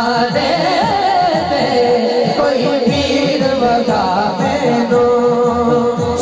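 A male naat reciter singing a Punjabi naat into a microphone through a sound system, drawing out long held notes, with a low steady beat underneath.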